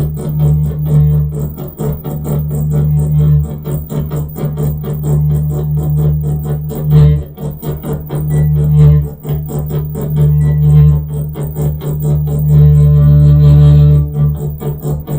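Electronic noise drone, likely electromagnetic interference from a microwave oven amplified through a no-input mixer: a loud, steady low buzz with a fast pulsing flutter, briefly dipping about seven and nine seconds in.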